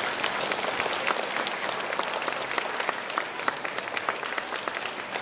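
Audience applauding: many hands clapping together, slowly fading.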